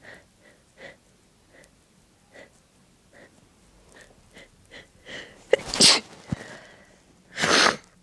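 Two strong, wet sneezes from a person, about a second and a half apart. They follow a run of quiet short breaths as the sneeze builds, and were brought on by tickling the nose.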